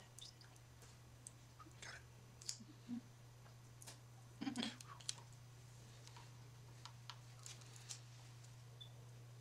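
Faint, scattered clicks and scrapes of a wooden stick rubbing a vinyl decal down onto a stained wooden board, over a steady low hum.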